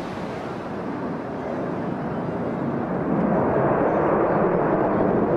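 Eurofighter Typhoon FGR4 fighter jet in flight: a broad jet-engine rumble from its twin Eurojet EJ200 turbofans that grows steadily louder, swelling further about three seconds in.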